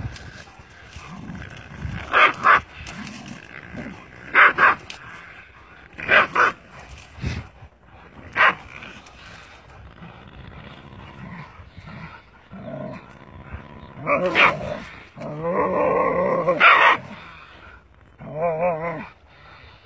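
Dogs barking: single sharp barks and pairs of barks every two seconds or so, then a longer stretch of barking and growling, and a wavering cry near the end.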